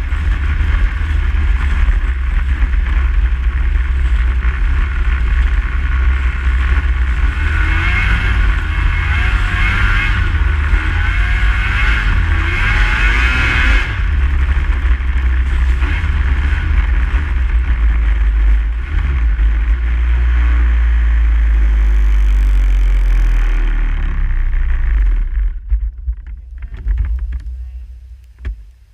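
Snowmobile running steadily at speed, with heavy low wind rumble on the microphone. The sound drops off sharply about 25 seconds in.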